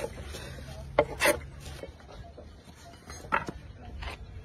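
A flat hand blade scraping shavings off the edge of a willow cricket bat: two quick strokes about a second in, then two more in the last second and a half, with quieter handling of the wood between.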